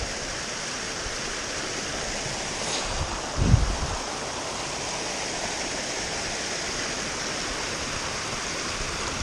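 Small mountain beck splashing down over rocks in a run of little cascades, a steady rush of water. A brief low thump about three and a half seconds in.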